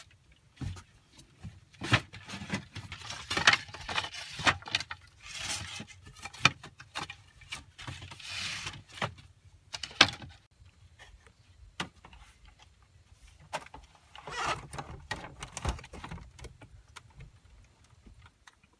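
Irregular knocks, clicks and rustling of a person moving about in a small bamboo-walled room, with a few sharper knocks standing out.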